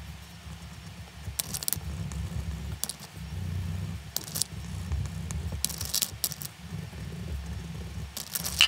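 Wax crayon scratching across paper in several short bursts of strokes, the sharpest near the end, over a low steady hum.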